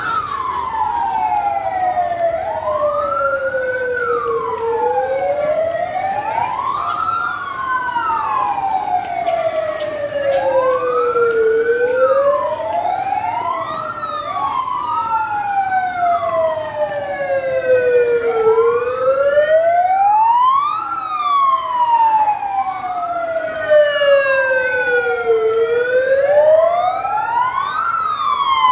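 Two or more sirens wailing out of step with each other, each rising and falling slowly, about seven seconds per cycle: the alarm signal for an earthquake drill.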